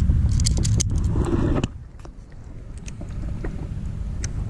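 Low rumble of wind buffeting the microphone, with scattered sharp clicks of fishing gear being handled. Just under two seconds in the rumble drops away suddenly, leaving a quieter, even hiss with a few light clicks.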